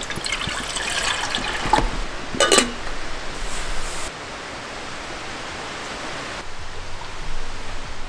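A mountain stream rushing steadily, with a few metal clinks and knocks in the first couple of seconds as a kettle is set on top of a small wood stove.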